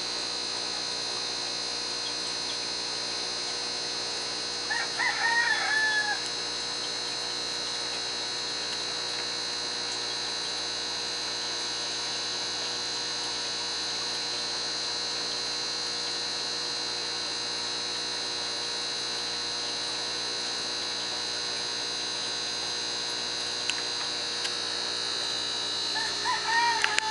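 Steady electrical hum with a high whine. About five seconds in, a short wavering call rises over it, and another comes near the end.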